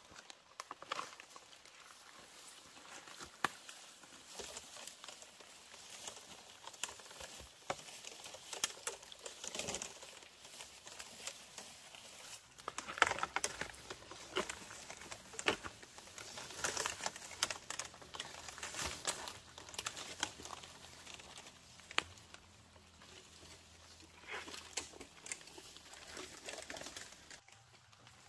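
Irregular rustling and crinkling, scattered with light clicks and ticks, like something being handled or worked by hand.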